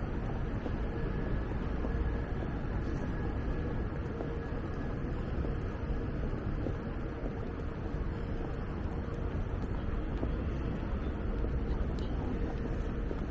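City street ambience: a steady low rumble of passing traffic with a constant faint hum running through it.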